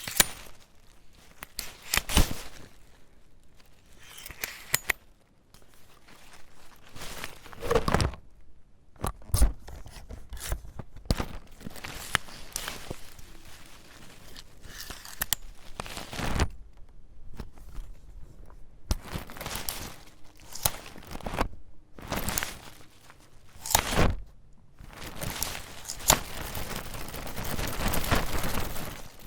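An umbrella being handled, its canopy fabric rustling and crinkling, with sharp clicks and snaps from its catch and frame scattered throughout and a longer stretch of rustling near the end.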